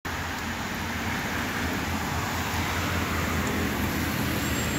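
Steady traffic noise on a rain-wet road: the hiss of car tyres on the wet surface with a low engine rumble underneath.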